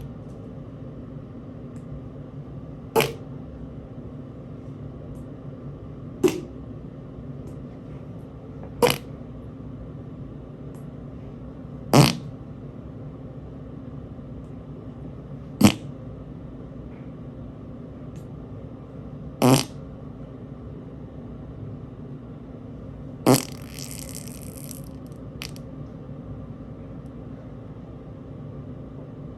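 A person farting: seven short, loud farts a few seconds apart, over a steady low hum. A brief hiss follows the last one.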